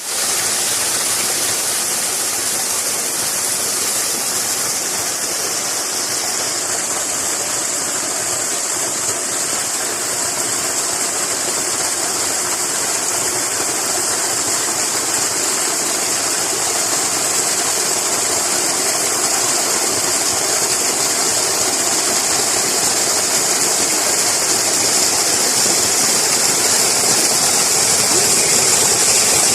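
Water pouring steadily from a natural spring spout, a continuous hissing splash that grows slightly louder toward the end.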